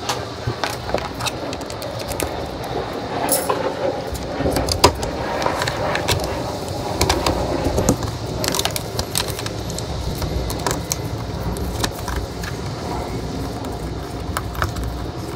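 Hands refitting the air intake hose and air filter housing in a van's engine bay: scattered clicks and knocks of plastic parts being pushed and seated, over the rustle and rumble of handling.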